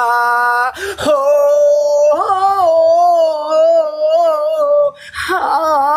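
Unaccompanied-sounding singing voice holding a long, wavering note for about four seconds. It breaks off briefly near the end before the next phrase begins.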